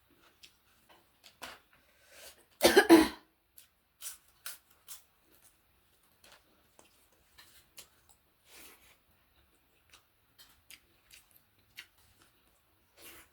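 A person coughs once, briefly, about two and a half seconds in, while eating. Around it are faint scattered clicks and smacks of chewing and handling food.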